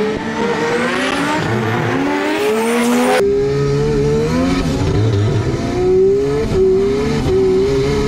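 Tuned race car engine under hard acceleration, its revs climbing steadily and then dropping back at gear changes late in the run. It is heard from inside the car's cabin.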